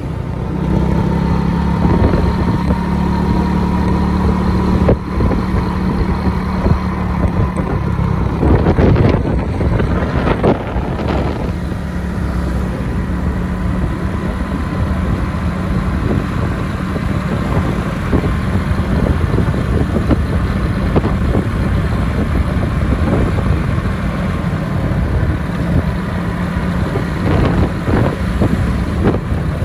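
Motor scooter's small engine running steadily at cruising speed, with road and wind noise.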